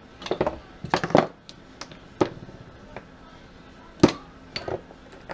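Small metal engine parts clinking and clattering on a workbench as a hand sorts through them: a string of sharp clicks with short metallic ringing, the loudest about four seconds in.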